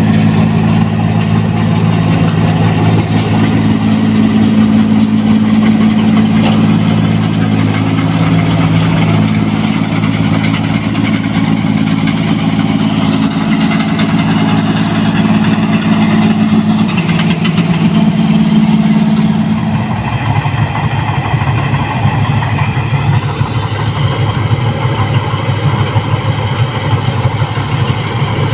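Rice combine harvester engine running steadily with a low hum; about twenty seconds in the hum gives way to a lower, rougher drone.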